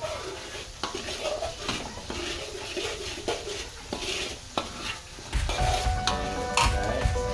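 A utensil stirring and scraping in a pan as curry spices fry in hot oil, with a light sizzle and repeated sharp clicks against the pan. Background music comes in about five seconds in.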